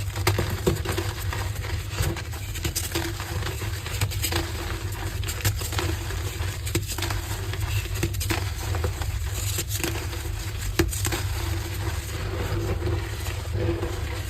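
Heart-shaped gym chalk pieces crumbling and crunching under the fingers: a dense run of small crackles with sharper snaps every second or so, over a steady low hum.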